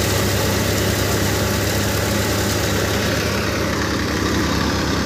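Sonalika DI 740 III tractor's 42 HP diesel engine running steadily at just over 1500 rpm with a fast, even throb, while driving a thresher off the PTO, with the thresher's rushing noise mixed in.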